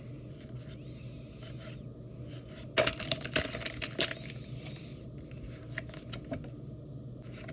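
Pokémon trading cards being handled and flicked through: a quick burst of crackling and clicking about three seconds in, then lighter scattered rustles.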